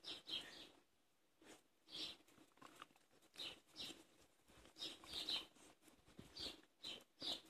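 Dog eating smoked tofu from a hand: faint, short wet smacking and chewing clicks in irregular clusters.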